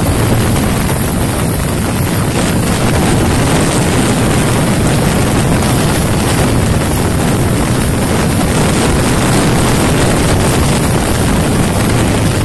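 Honda TMX 125's single-cylinder four-stroke engine running steadily at high revs, around 6,000 rpm, at highway speed of about 110 km/h. Wind rushes over the microphone throughout.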